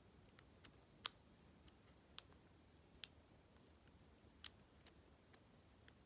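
Faint, irregular clicking of a short hook lock pick working the pins inside a Master Lock 410 padlock, about ten small clicks, one louder about three seconds in.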